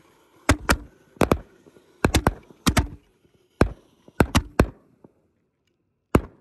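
Volley of consumer ball-type artillery shells fired from mortar tubes, launching and bursting overhead: about a dozen sharp bangs in quick clusters over the first five seconds, then one more near the end.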